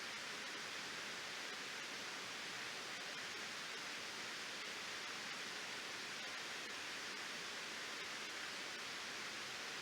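Waterfall rushing steadily: an even hiss of falling water with no breaks or changes.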